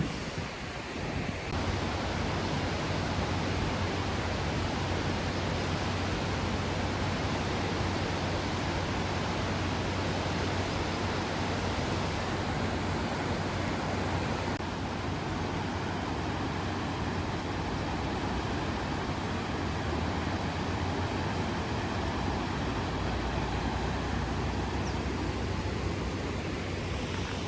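Steady rush of wind and road noise from a moving motorcycle, with a low engine hum underneath. The sound changes abruptly about a second and a half in and again about halfway through.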